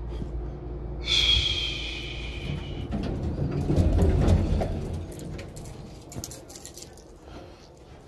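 A high squeal over a hiss lasting about two seconds, then footsteps and handling noise, then a set of keys jingling and clicking in the hand.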